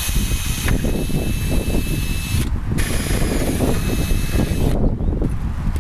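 Cordless drill boring through a length of metal conduit, the motor whining as the bit cuts. It stops briefly about two and a half seconds in, then runs again and stops near the end.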